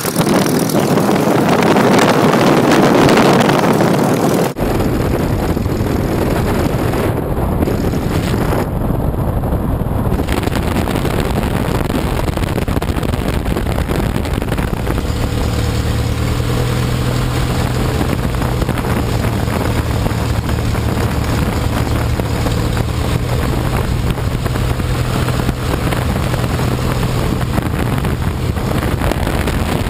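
Lycoming O-290 four-cylinder air-cooled aircraft engine running steadily on the ground, driving its propeller, with wind noise on the microphone. A loud rushing stretch in the first four seconds or so stops abruptly, giving way to a steadier engine note whose low hum grows stronger about halfway through.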